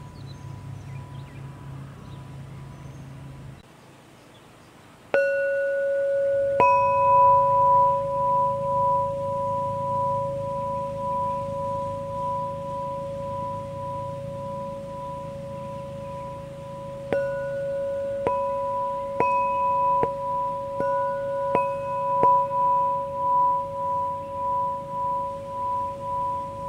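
Two homemade tuned metal chime tubes struck several times, each strike ringing on as a clear, long-sustaining tone, one tube lower and one higher, the higher tone wavering as it sounds. The strikes come as a pair about five seconds in, then in a quicker cluster from about two-thirds of the way through.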